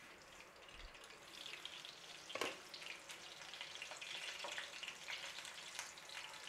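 Oil sizzling and crackling in a frying pan as breaded potato and chicken-mince patties shallow-fry, growing louder over the first couple of seconds. One sharp knock sounds about two and a half seconds in.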